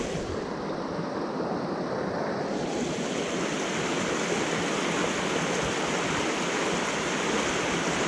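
Shallow mountain stream rushing over rocks in a riffle: a steady wash of running water, growing a little brighter about two and a half seconds in.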